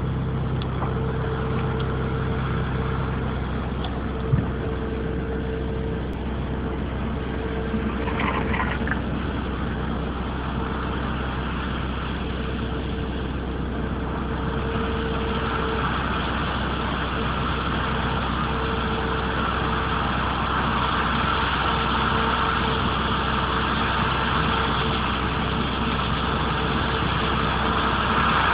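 Combine harvester running steadily while harvesting: a constant low engine drone with a steady whine over it, growing a little louder in the second half as the machine comes closer. A single short knock about four seconds in.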